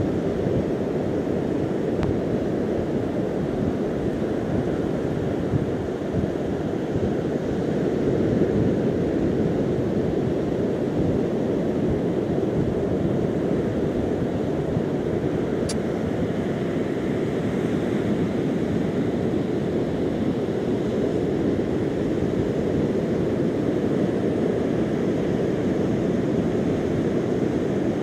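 Steady rushing noise of wind on the microphone mixed with surf washing on the shore.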